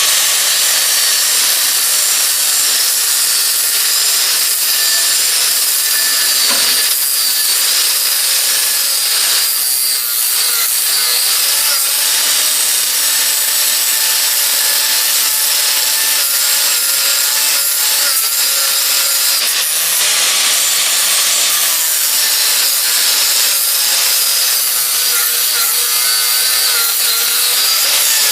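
Power cutting tool grinding steadily through a rusty steel U-bolt, with a faint wavering whine over the noise and a brief dip about six and a half seconds in.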